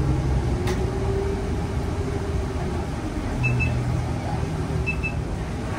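Inside a New Flyer XN35 city bus with a Cummins Westport L9N natural-gas engine, running with a steady low rumble. A faint whine rises and then falls in pitch over the first couple of seconds, and two brief high chirps come in later on.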